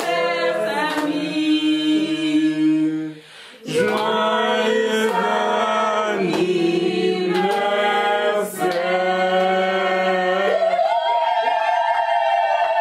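Several voices singing a cappella in harmony, in long held notes, stepping up to a higher sustained note near the end.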